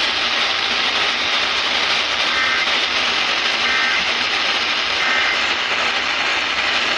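Loud, steady radio static, with three faint, short EAS digital data bursts (the two-tone SAME header chirps) buried in the hiss about a second and a half apart near the middle.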